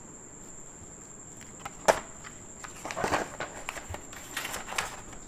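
Hand and pen handling a paper drawing sheet on a desk: a sharp tap about two seconds in, then short bursts of paper rustling and brushing. A faint steady high-pitched whine runs underneath.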